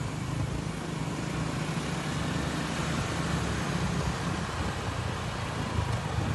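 Road traffic with a heavy vehicle's engine running, a steady low rumble under a hiss of traffic and tyre noise.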